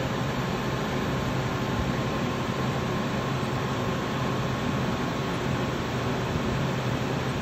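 Steady running noise of a ventilation fan: an even whoosh with a low hum under it and a faint high tone that fades about six seconds in.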